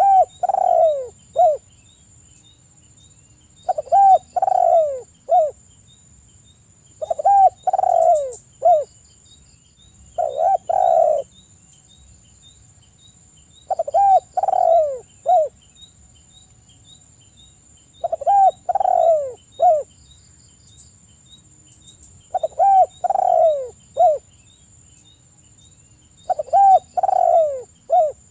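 Spotted dove (tekukur) cooing: a short phrase of three or four falling coos, repeated about every four seconds.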